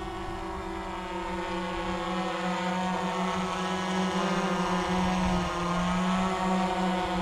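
GoPro Karma quadcopter hovering, its four electric motors and propellers making a steady buzzing hum on several pitches at once. The pitch wavers slightly as the motors adjust, and the hum grows a little louder as the drone comes closer.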